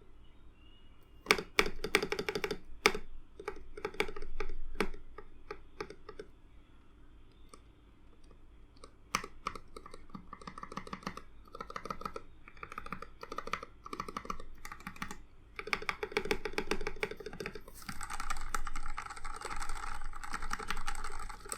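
Typing on a YC66 mechanical keyboard with linear Gateron Milky Black switches lubed with Krytox 205g0: quick runs of key presses in bursts, starting about a second in, with a pause near the middle and faster, denser typing near the end.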